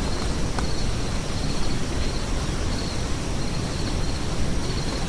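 Steady outdoor noise with a strong low rumble, typical of wind on the microphone, and a faint high chirring that comes and goes in short stretches.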